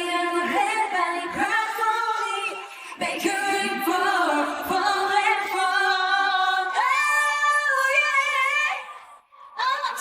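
Female voices singing a pop melody together, with little instrumental backing heard. The singing breaks off briefly about nine seconds in, then resumes.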